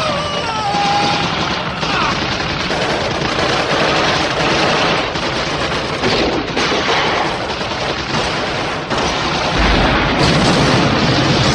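Heavy battle gunfire from a war-film soundtrack: rifle and machine-gun fire going on continuously, dense and loud.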